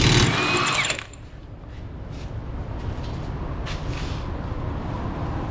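Impact wrench briefly spinning on the 32 mm rear hub nut, about a second of loud whirring, followed by a steady low hum.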